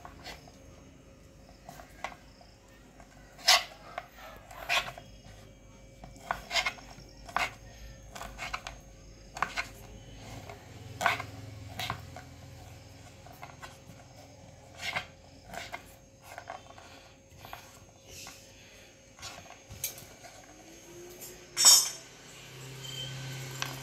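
Kitchen knife cutting hard dried figs on a wooden chopping board: irregular knocks of the blade meeting the board, one every second or two, with a louder knock near the end.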